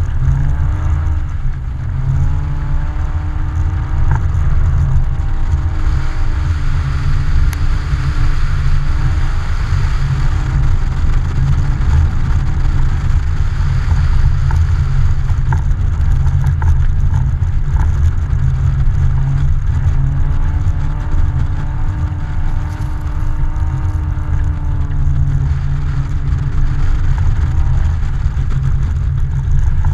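Car engine revving up and down over and over as the car is driven and slid across snow-covered ice, under a steady heavy low rumble of wind and road noise on an outside-mounted camera.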